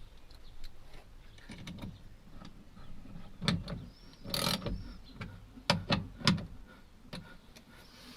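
Sharp clicks and knocks of hand tools and metal parts as bolts are fitted inside a car door, with a short rasping burst about halfway through and a few louder knocks near six seconds.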